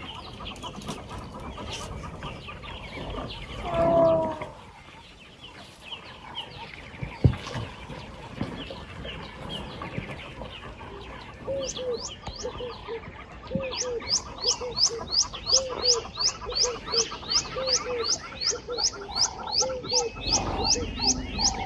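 Birds calling: a short call about four seconds in, then, from about twelve seconds in, a steady run of rising chirps about two a second over a lower repeating call.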